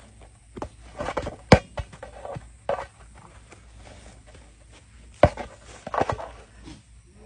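Scuffing and rustling of a big ball being pushed and rolled over sandy ground and batted by a lioness, with two sharp knocks, about a second and a half in and again past five seconds.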